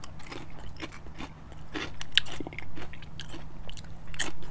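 A person chewing food close to the microphone, with irregular wet mouth clicks and smacks.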